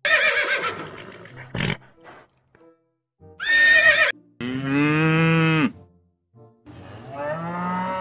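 A horse whinnying, with a high quavering call at the start and a shorter high call in the middle. Then a cow mooing: one long low call, and another beginning near the end.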